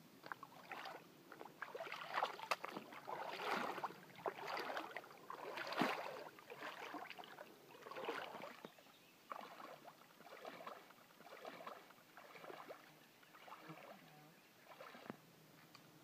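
Footsteps wading through a shallow stream, water splashing and sloshing with each step, about one step a second, heavier splashes in the first half.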